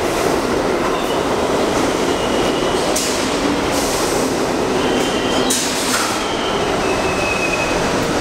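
NYC Subway R62A train cars pulling into a station, with a steady rumble and clatter of wheels on the rails and several brief high wheel squeals as it slows.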